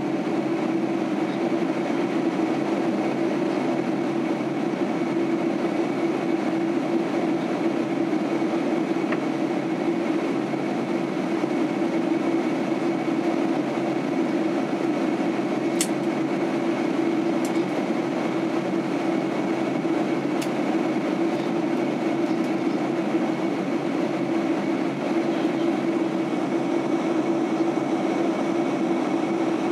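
Steady cabin drone of a Boeing 767-300 airliner in flight, heard inside the cabin over the wing: engine and airflow noise with a constant hum, and a few faint clicks about halfway through.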